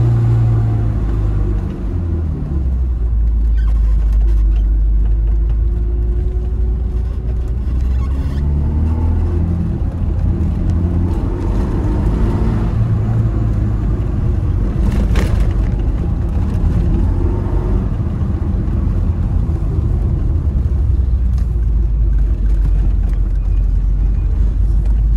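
Tofaş car's engine and Konya-type aftermarket exhaust heard from inside the cabin while driving. The low engine note rises and falls as the driver works through the gears, with a brief drop about two seconds in.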